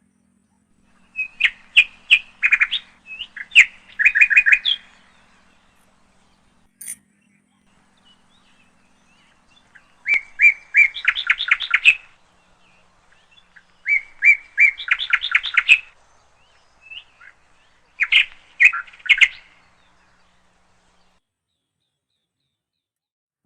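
A songbird singing in four short phrases of rapid chirping notes, each a second or two long, with a few seconds of quiet between them.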